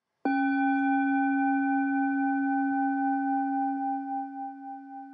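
A singing bowl struck once just after the start, ringing on with a low tone and several higher overtones and fading slowly, its loudness wavering in a slow throb toward the end.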